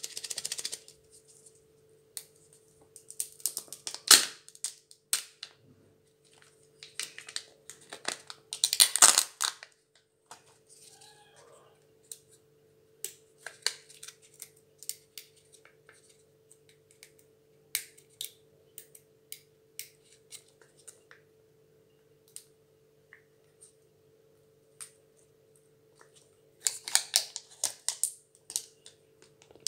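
Crinkling and tearing of a Kinder Joy egg's foil wrapper and peel-off foil lid, mixed with small clicks and rustles of the plastic egg halves being handled. It comes in irregular bursts, the loudest about four and nine seconds in and near the end, over a faint steady hum.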